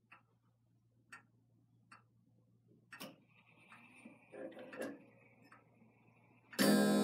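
Large grandfather clock ticking about once a second, with a thin whir and a few knocks from the movement in the middle, then a deep, loud bell note rings out near the end as the clock begins striking four.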